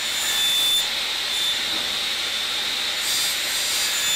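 Logosol sliding table saw running at full speed while a long wooden strip is fed through the blade: a steady hissing rush with a high whine over it.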